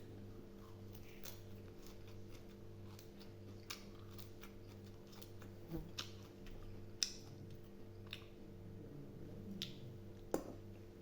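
Someone eating boiled pig intestine: scattered small clicks and smacks of chewing and utensils, with a few sharper ticks, the loudest about seven seconds in and near the end, over a steady low hum.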